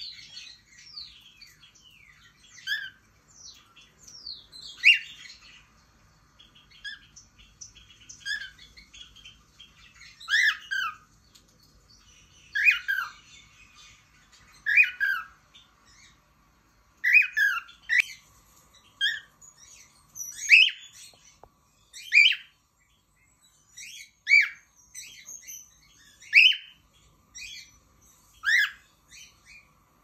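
Cockatiel calling: short, high chirps and whistles, some sliding down in pitch, repeated every second or two.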